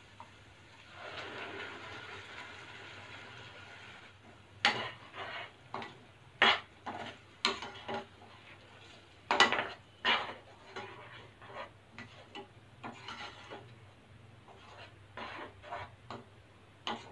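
Tomato puree going into hot oil in a non-stick pan with a soft hiss for about three seconds, then a plastic spatula scraping and stirring it round the pan in short, uneven strokes.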